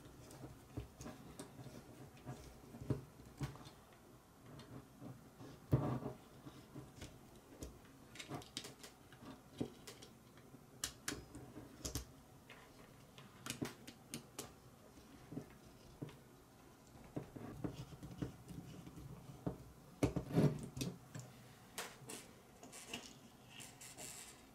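Small metal parts of a radial engine model kit handled and fitted by hand: scattered light clicks and taps, with louder knocks about six seconds in and again about twenty seconds in.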